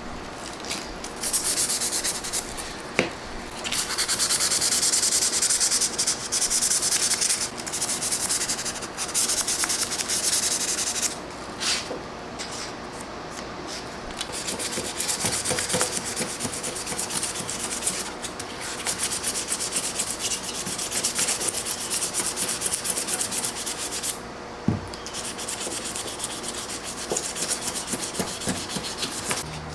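Hand sanding of a rusty steel pocketknife blade: quick back-and-forth abrasive strokes in long runs, paused briefly a few times, with a few faint clicks.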